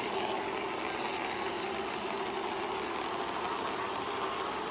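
Garden-scale model train running along its outdoor track: a steady mechanical running noise of motor and wheels.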